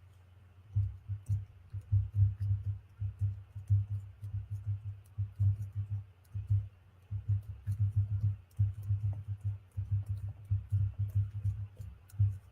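Rapid, irregular soft thuds with faint sharp clicks on top, several a second: handling or tapping noise close to the microphone.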